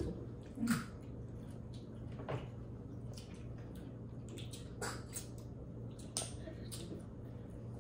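Scattered wet smacks, clicks and small snaps of seafood boil being eaten by hand, crab-leg shells cracked and the meat pulled out, over a low steady hum.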